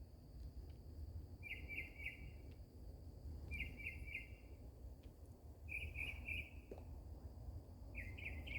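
A single bird singing the same short, fast run of chirps over and over, four phrases about two seconds apart, over a low background rumble.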